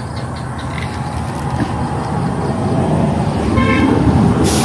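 A motor vehicle running close by, its low rumble growing louder, with a short horn toot about three and a half seconds in and a sudden hiss right at the end.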